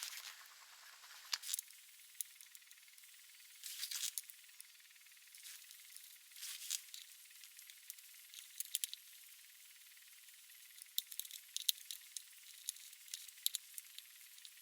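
Faint, scattered clicks and light clinks, a few at a time with gaps between, over a thin steady hiss.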